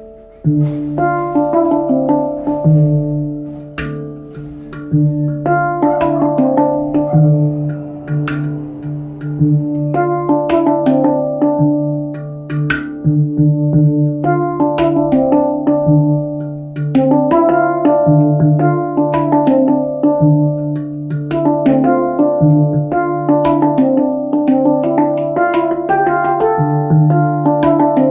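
A D Kurd handpan of nitride steel with nine notes, played by hand. Ringing metallic notes follow one another in a flowing melody over a low note that rings on beneath them, with crisp taps of the fingers among the notes.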